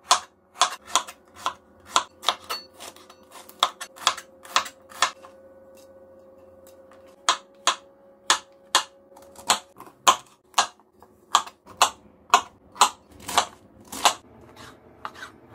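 Chef's knife chopping carrot, mushrooms and cabbage on a plastic cutting board: sharp knocks of the blade striking the board, about two to three a second. The chopping breaks off for about two seconds a third of the way in.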